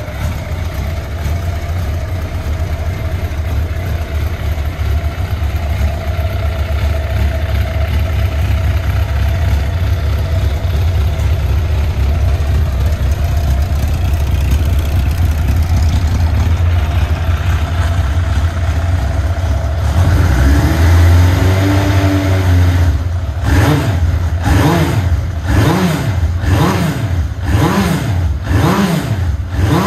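Suzuki Inazuma 1200's inline-four idling steadily through a Yoshimura titanium full exhaust. About two-thirds of the way through it is revved once, then blipped in a quick string, about one sharp rise and fall of engine speed a second.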